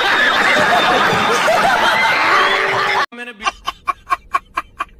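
A studio audience laughing loudly, many voices at once; it cuts off about three seconds in. Then one man laughs in quick, even ha-ha bursts, about five a second.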